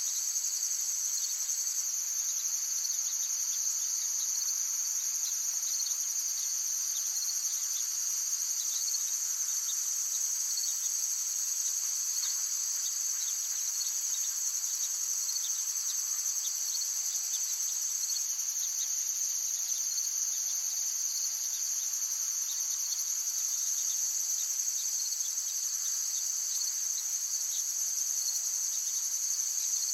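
A dense, steady chorus of insects, crickets or similar, trilling continuously at a high pitch.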